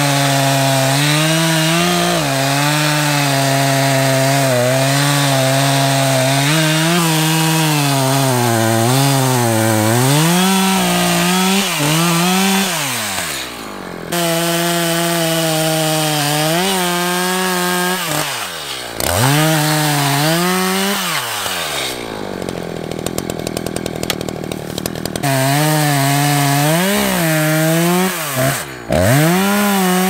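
Echo Timberwolf 59cc two-stroke chainsaw cutting into a pine trunk at full throttle, its pitch sagging and recovering as the chain loads up in the cut. It drops to idle briefly a few times, and for about three seconds two-thirds of the way through, then revs back up.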